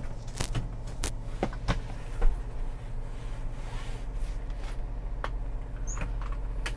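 Avanza/Xenia 1300 cc VVT-i engine idling steadily, heard from inside the car's cabin, with a scattered string of clicks and knocks from handling inside the car, the loudest about two seconds in.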